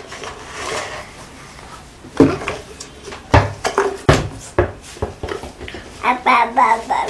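A toddler handling plastic jars: about four sharp knocks of plastic being picked up and bumped in the middle, then the child babbling near the end.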